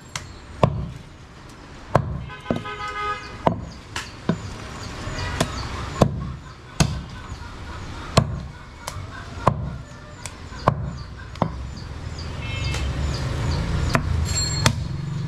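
Butcher's heavy knife chopping goat meat and bone on a round wooden chopping block: sharp knocks, roughly one a second, at an uneven pace.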